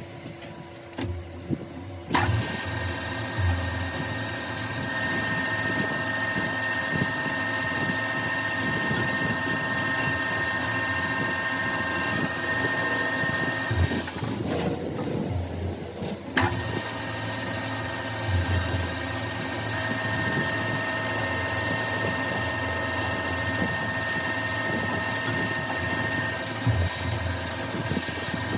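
Metal lathe running: a steady machine whine with several held tones over a rough mechanical rumble. It starts about two seconds in, and the whine drops out for a couple of seconds about halfway before coming back.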